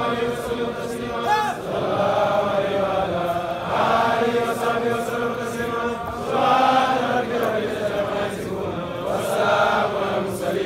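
A group of men chanting together in unison, an Islamic devotional chant, in long phrases that swell about every two to three seconds.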